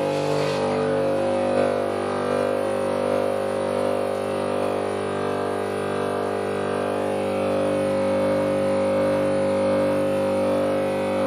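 VinSyst VSS-9 electromagnetic sieve shaker running, with a stack of brass test sieves vibrating on it: a steady electrical buzzing hum with several tones held at once.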